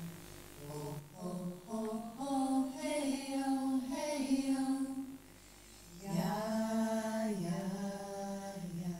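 A woman's voice singing unaccompanied, a slow chant in long held notes, in two phrases with a short break about five seconds in, played back from a video through the room's speakers.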